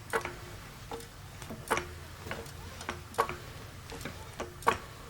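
Irregular light clicks and taps of metal parts as a floor jack is handled and turned over by hand, some leaving a short faint ring.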